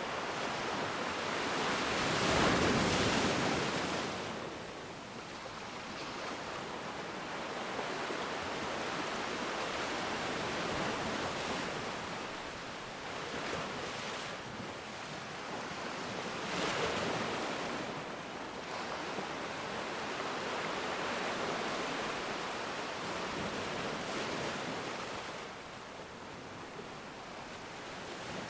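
Ocean waves breaking and washing on a shore, swelling and easing over several seconds, with the biggest surge about two to four seconds in and another near the middle.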